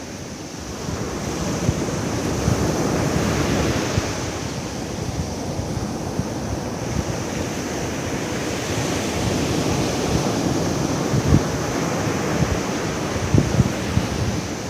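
Ocean surf washing steadily onto the beach, with gusts of wind buffeting the microphone.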